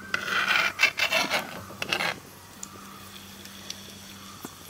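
A utensil scraping and rubbing against the inside of a cooking pot with fenugreek seeds frying in oil, several rough rasping strokes over about two seconds, then quieter.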